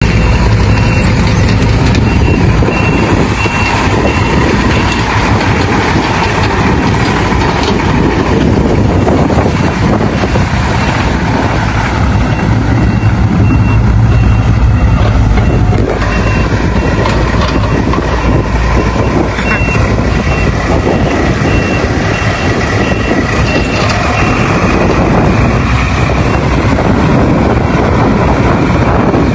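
Heavy diesel engines of a loaded dump truck and an excavator running steadily. A reversing alarm beeps in short, evenly spaced beeps near the start and again a little past the middle.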